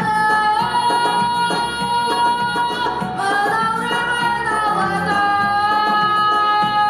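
A boy singing into a handheld microphone over an instrumental backing track, holding long, steady notes.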